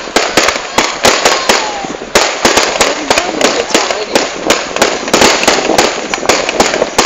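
Fireworks display: a rapid, continuous barrage of bangs and crackles, several each second with no let-up.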